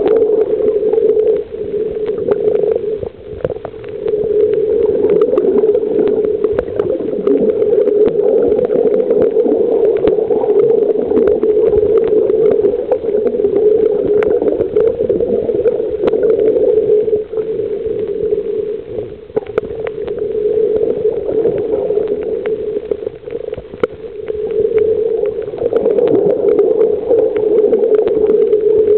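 Underwater sound picked up by a snorkeler's camera held below the surface on a reef: a steady, muffled drone with many small clicks and crackles, dipping in level now and then.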